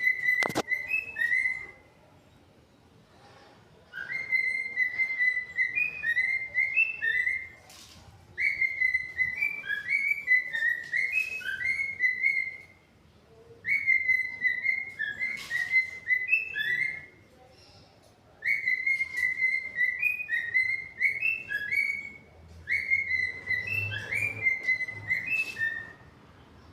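Cockatiel whistling a short learned tune: the same phrase of quick gliding notes repeated about six times, with brief pauses between.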